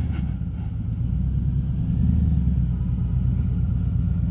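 Harley-Davidson Road King Special's V-twin engine running steadily while riding, a low rumble picked up by a microphone inside the rider's helmet.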